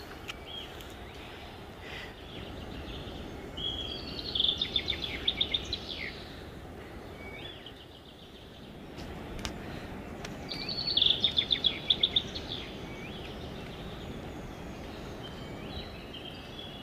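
A songbird singing in two bouts of quick, repeated high notes, about four seconds in and again about eleven seconds in, over a steady hiss of outdoor background noise.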